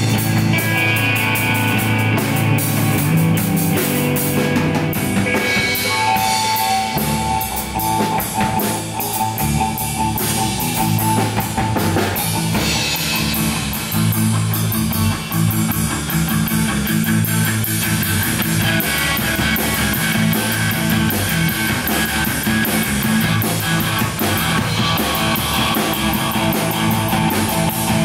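Live rock band playing: electric guitar, bass guitar and a drum kit with steady cymbal strikes, continuous and loud.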